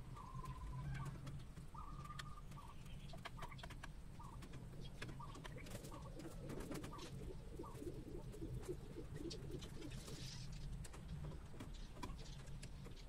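Chickens feeding from a plate: sharp pecking clicks cluster a few seconds in. Low, quick, repeated calls run through the middle, and short soft notes come and go.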